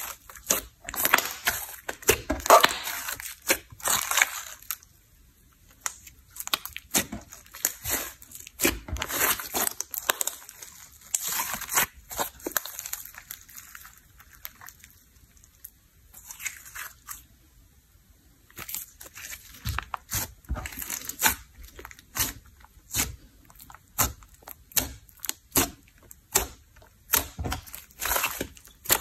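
Thick, glossy slime with makeup and clay mixed in being pressed, poked and stretched by hand: irregular sticky crackling and popping clicks, coming in clusters with a couple of quieter pauses.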